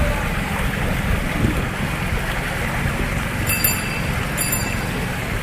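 Wind buffeting the microphone over a steady low rumble, with two short high-pitched beeps a little under a second apart past the middle.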